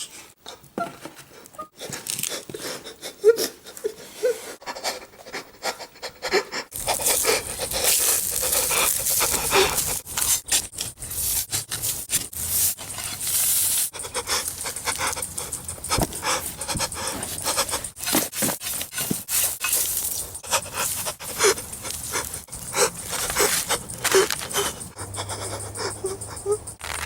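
A man crying in rapid, heavy panting breaths and sobs, broken by short whimpers. The breathing gets louder and harsher about seven seconds in.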